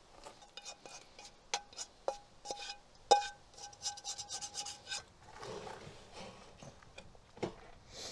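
A utensil scraping and tapping in a pan while scrambling eggs. A string of quick scrapes and clinks runs for about the first five seconds, with the pan ringing after the sharper hits. Softer rubbing follows, and there is one more knock near the end.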